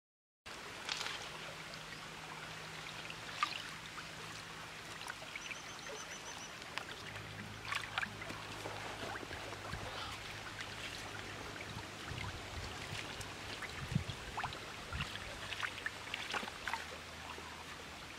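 Shallow water trickling and burbling over gravel and stones in a narrow channel, with scattered small splashes and clicks. A faint steady low hum sits underneath.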